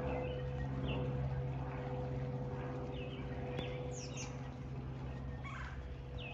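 Small birds chirping at intervals over the steady low drone of a distant aircraft engine, which slowly fades away.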